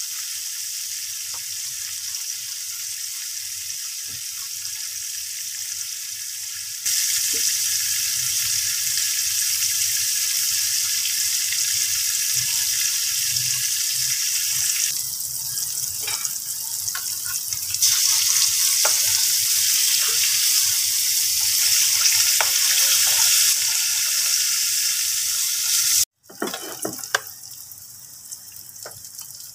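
Salted fish deep-frying in a wok of hot oil, giving a steady high sizzle that gets louder after about seven seconds. Near the end the sizzle is quieter, with a few clicks from a metal slotted spatula turning the browned fish.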